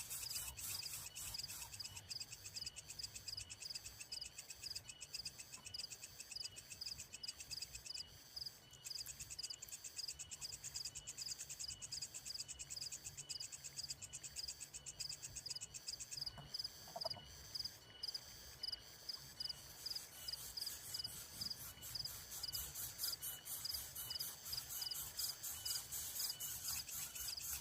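Steady chorus of fast, high-pitched chirping and trilling from calling animals, like a cricket or frog chorus, with short evenly repeated pips throughout.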